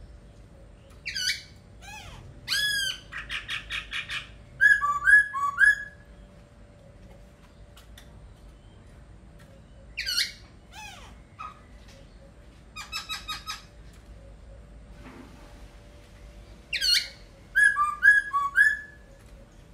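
Laughingthrush singing in four bursts with pauses between: loud whistled notes sweeping down in pitch, a quick rattling trill and short chirped notes.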